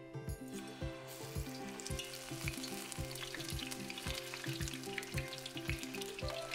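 Battered onion rings deep-frying in hot oil, a steady sizzle and crackle that sets in about a second and a half in. Background music with a steady beat plays under it.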